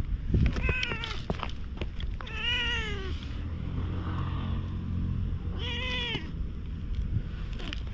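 Domestic cat meowing three times: a short meow about a second in, a longer meow that rises and falls around two and a half seconds, and another near six seconds.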